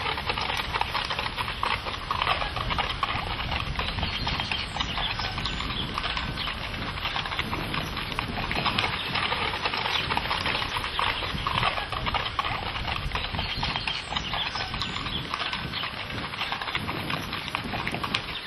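Horse hooves clopping, a steady clatter of many small knocks.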